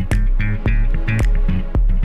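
Outro music: a funky track with a steady drum beat, bass and guitar.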